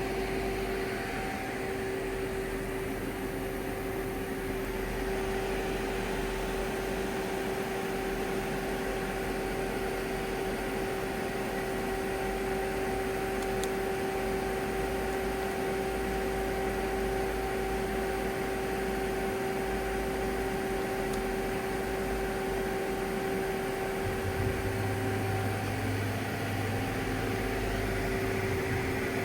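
2014 Doosan Puma 2600Y CNC lathe running with a steady mechanical hum and two steady tones. A deeper hum joins about 24 seconds in.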